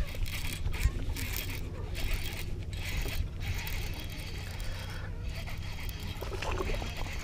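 Baitcasting reel being cranked, its gears whirring unevenly, over a steady low hum.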